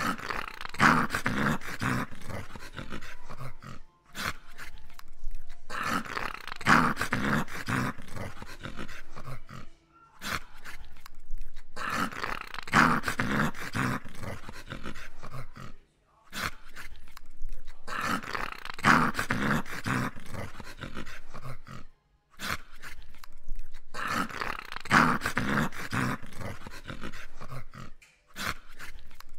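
A dog growling in repeated bouts of about six seconds, each breaking off with a short silence.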